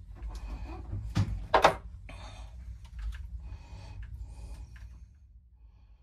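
Wire cutters snipping the float switch's wire lead: two sharp snaps close together about a second and a half in, with rustling of the wires being handled around them.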